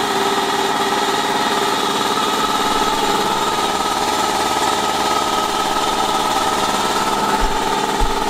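Starkwerk SW 455/10 air compressor with a twin-cylinder pump, running steadily while it fills its tank from empty. It has just been repaired and its check valve refitted.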